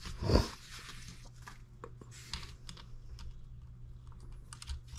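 Light, irregular clicks and taps of hands handling a small brass model engine and its wooden base while wiping it with a cloth, with one louder thump near the start.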